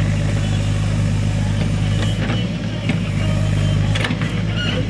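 Diesel engine of heavy machinery running steadily at a constant pitch, with a few faint knocks.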